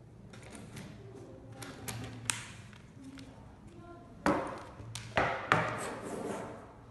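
Carbon trekking poles being handled on a wooden tabletop: a sharp click about two seconds in, then three louder knocks, each with a short ringing, between about four and five and a half seconds in, as a pole's flick-lock clamp is worked and the pole is shifted on the table.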